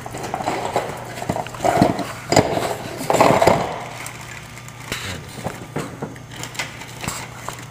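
Clicks and knocks of metal parts being handled on a workbench, louder and busier for a couple of seconds near the start, over a steady low machine hum.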